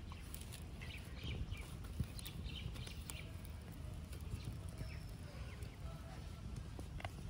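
Small open wood fire burning under a whole eggplant, crackling with scattered sharp clicks, over a low steady rumble. Birds chirp briefly in the background, mostly in the first half.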